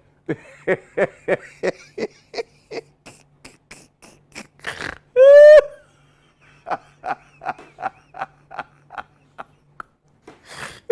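A pig grunting in short, evenly spaced grunts, about three a second, with one louder short squeal a little past five seconds in.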